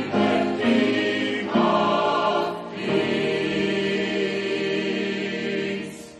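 Church choir singing, closing on a long held chord that fades out near the end.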